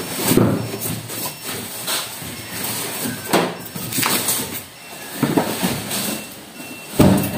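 Rustling and scraping of a cardboard box, plastic wrap and styrofoam packing being handled and pulled apart, in irregular bursts, with a sharp knock about seven seconds in.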